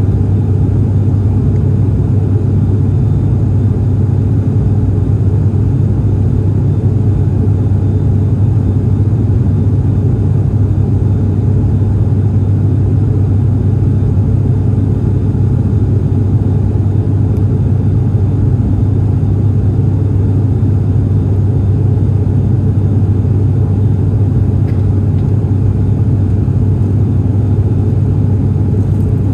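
Steady cabin drone of a Japan Air Commuter turboprop airliner in flight: the engines and propellers make an even, deep hum that holds constant throughout.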